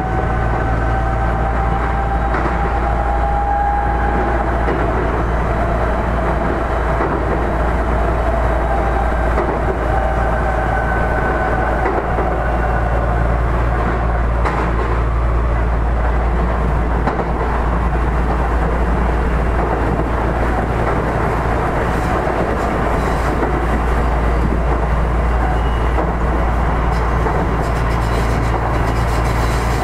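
Odakyu 1000 series electric train heard from inside a passenger car while running: a steady rumble of wheels on rail with some clatter over rail joints, under a loud, constant air-conditioning drone. Faint thin whining tones come and go over the noise.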